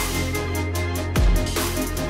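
Electronic background music with deep bass and a heavy bass hit a little over a second in.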